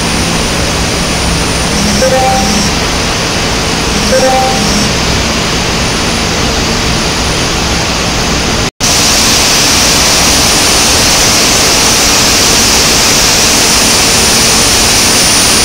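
Steady loud hum and hiss of steel mill machinery in the billet cooling and storage area. Two short pitched blips come about two and four seconds in. The sound cuts out briefly about nine seconds in, then returns as a steadier, brighter hiss.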